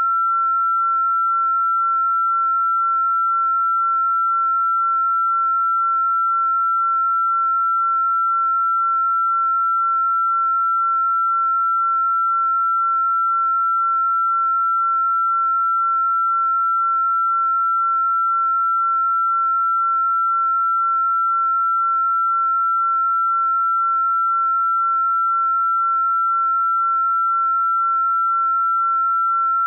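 A single pure electronic sine tone, fairly high-pitched, held perfectly steady without any change in pitch or loudness: a synthesized sound-therapy 'frequency' tone.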